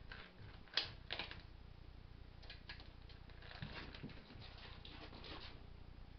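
Light, irregular clicks and taps of a plastic pen being batted across a hard floor by a cat. The sharpest click comes about a second in, and a quicker run of taps follows in the second half.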